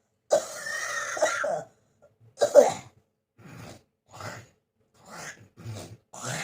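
A person with a bad cold in a coughing fit: one long cough near the start, the loudest, sharp cough at about two and a half seconds, then a run of shorter, fainter coughs.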